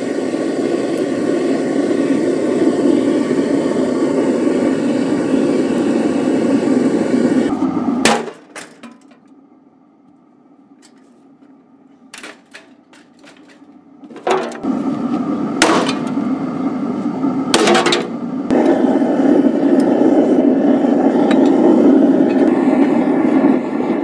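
Diesel burner with an electric blower firing a small metal-melting furnace: a steady, deep rushing noise. It drops away for about six seconds in the middle, where a few sharp metallic knocks are heard, then comes back, with two more sharp knocks soon after.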